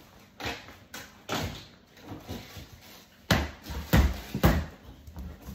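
Dull thuds and knocks from a toy bat striking a free-standing punching bag, the loudest three close together a little past the middle.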